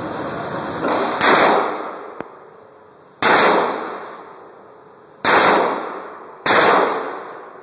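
Heckler & Koch USP pistol in .40 S&W firing four single shots, roughly one to two seconds apart, each shot's report echoing and dying away in the enclosed indoor range lane.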